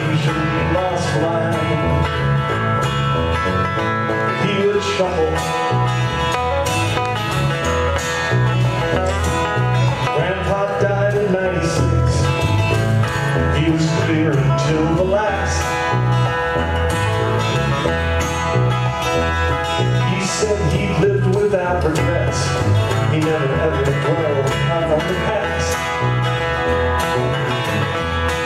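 Acoustic country-bluegrass instrumental break: two acoustic guitars strumming and a banjo picking over a steady, even beat.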